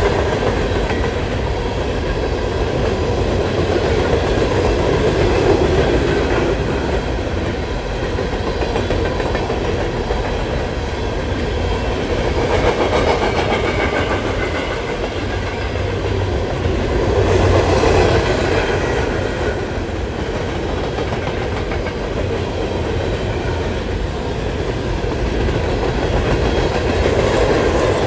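CSX freight train's cars rolling past, steel wheels running on the rails in a steady loud rumble that swells and eases several times.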